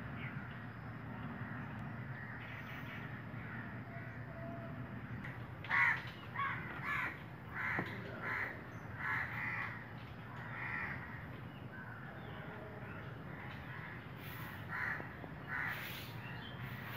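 A crow cawing: a run of short, harsh caws, about two a second, starts about six seconds in, followed by a few more near the end, over steady low background noise.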